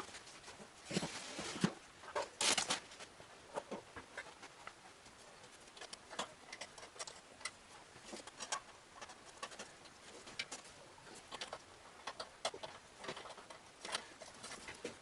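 Hand tools and metal engine parts clicking and clinking at an irregular pace during engine assembly, with two short bursts of hiss, about one and two and a half seconds in.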